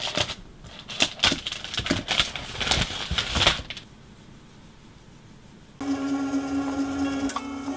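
Clear plastic wrap crinkling and rustling, with small clicks and rubs, as a laptop is handled and lifted out of its box; the handling stops about four seconds in. After a short lull, background music with a steady low tone begins about six seconds in.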